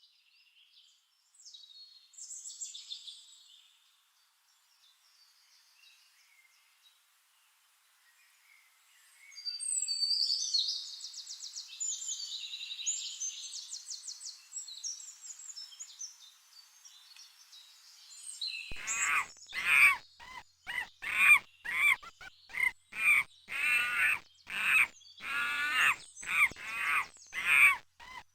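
Scattered high bird chirps and twittering, then about two-thirds of the way in a troop of monkeys starts calling: loud, pitched calls repeated in a steady rhythm, about one and a half a second.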